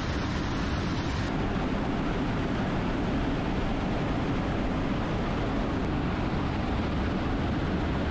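Steady jet aircraft noise, a dense even rush of engine and airflow with a heavy low rumble, its high hiss changing slightly about a second in.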